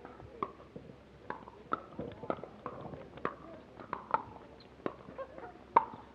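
Pickleball rally: a quick, irregular run of sharp pops from paddles striking the hollow plastic ball and the ball bouncing on the court, one hit about every half second, the loudest near the end.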